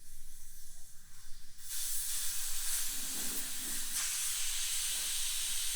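Compressed air hissing out of a trailer tire through its valve stem as the valve core is unscrewed and pulled. The hiss starts suddenly about two seconds in and keeps going steadily.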